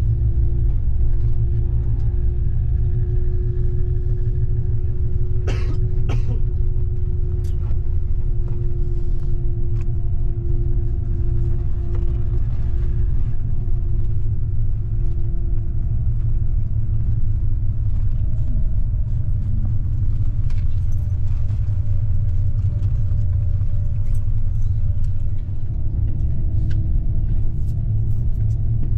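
Cabin noise of a double-decker coach at road speed: a steady low rumble from engine and road, with a faint hum that drifts slightly in pitch. Two sharp clicks come about six seconds in.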